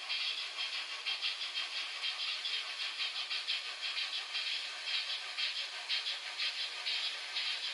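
Z-scale (1:220) model freight train headed by two miniature steam locomotives running over the track: a thin, high-pitched rattling hiss of tiny wheels and motors, pulsing about four times a second.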